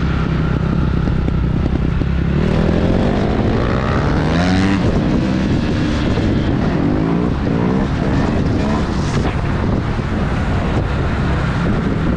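Dirt bike engine running on the move, its revs climbing and dropping off several times as the bike accelerates through the gears, with wind rushing over the helmet-mounted microphone.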